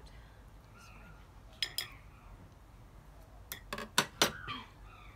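A spoon clinking against ceramic and glass bowls while food is scooped: two sharp clinks about one and a half seconds in, then a quicker run of clinks a little past the middle.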